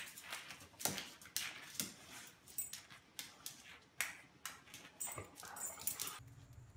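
A golden retriever making a series of short, sharp snorts at irregular intervals, roughly one or two a second, while nosing and pawing at a sour lemon slice.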